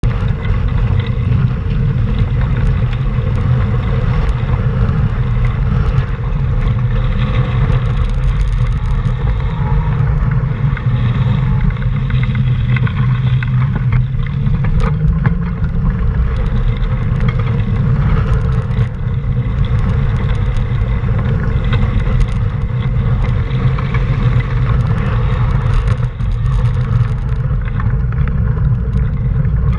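Steady low rumble of wind buffeting a camera microphone and tyres on wet pavement while riding along a bike lane, with city traffic mixed in.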